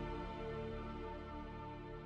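Soft background music with long held tones, slowly getting quieter.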